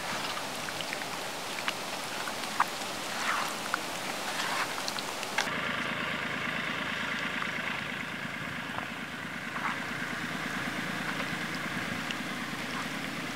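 Wet squelching and crackling of raw chicken pieces being squeezed and turned by hand in a thick spiced marinade in a clay pot, with scattered small clicks.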